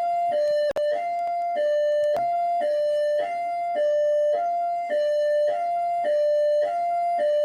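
Rio de Janeiro military police (PMERJ) siren in hi-lo mode: two steady tones alternating high and low, each held about half a second. A brief click and dropout just under a second in.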